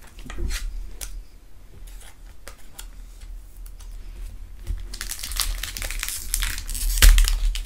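Plastic and foil crinkling as hands handle a Pokémon card in a clear plastic sleeve and a foil booster pack wrapper. Scattered rustles come first, then denser, louder crinkling from about five seconds in.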